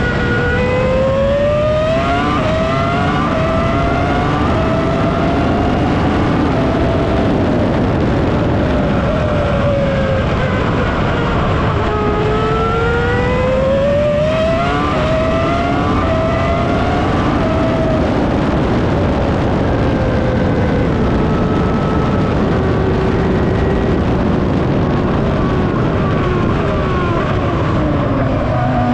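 BMW V10 engine of a 2003 Williams FW25 Formula 1 car at racing speed, screaming up through quick upshifts, dropping in pitch on downshifts into corners, then pulling hard again. Heard from the onboard camera on the car.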